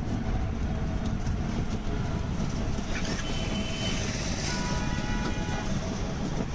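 Steady rumble of road and wind noise from riding in an open battery-powered e-rickshaw through city traffic, with a horn sounding steadily for a couple of seconds just past the middle.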